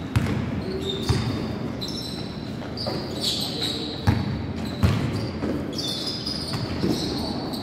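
Basketball bouncing on a hardwood gym floor, a handful of separate dribbles echoing in the hall, with short high squeaks of sneakers on the court between them.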